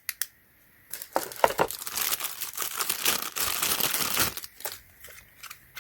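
Packaging crinkling and rustling as it is handled, a dense rustle lasting about three seconds, with a couple of sharp clicks right at the start.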